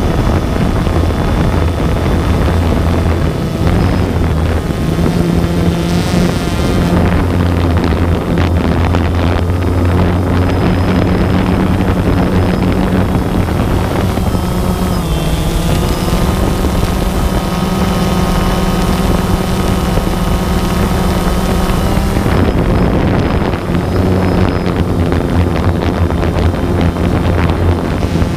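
Multirotor drone's motors and propellers running with a steady, loud buzz, the pitch shifting a few times as it manoeuvres. Wind rushes on the microphone.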